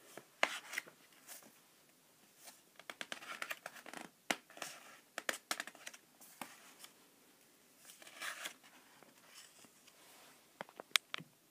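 Pages and cover of a large picture book being opened and turned by hand: intermittent paper rustling and crinkling with short, sharp clicks and taps.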